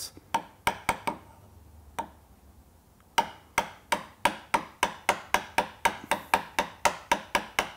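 A chisel being tapped lightly to chop vertically down through the waste at the shoulder of a dovetail tail. A few taps, a pause of about two seconds, then a steady run of about three taps a second.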